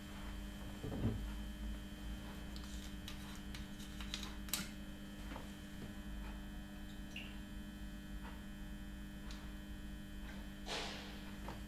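Steady low electrical hum with a few faint clicks and knocks as a glass bottle and shot glasses are handled on a wooden desk. Near the end, a short pour of liquid into a shot glass.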